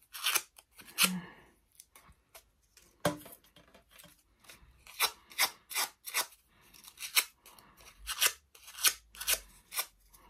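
Paper rose petals being scissor curled, a scissor blade drawn firmly along the paper again and again: a run of short, dry scraping strokes, about two to three a second.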